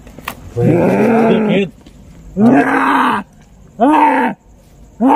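A human voice letting out four loud, drawn-out howling groans in a row, each a second or less and rising then falling in pitch.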